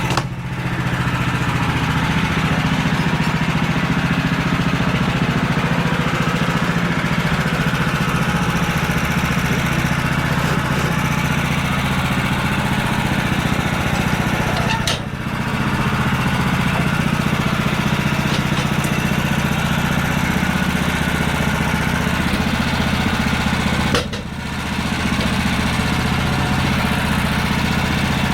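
Woodland Mills HM126 portable bandsaw mill's small gasoline engine running steadily with a dense higher hiss above it, dipping briefly twice.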